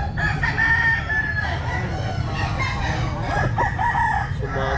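Several gamecock roosters crowing, their long calls overlapping at different pitches, over a steady low rumble.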